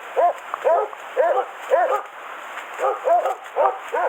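Takinoya-line boar hound baying: a run of loud barks that rise and fall in pitch, about eight of them with a short pause midway. This is a dog holding a wild boar at bay in its bed.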